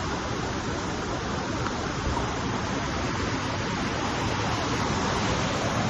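Steady rushing of water in a rainforest, an even hiss with a low rumble that neither rises nor falls.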